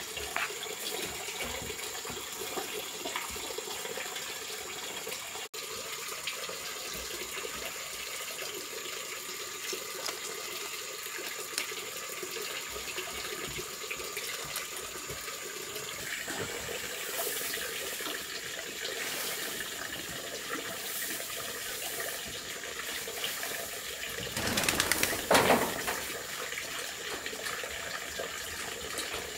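Steady running water, with a louder rustling burst near the end.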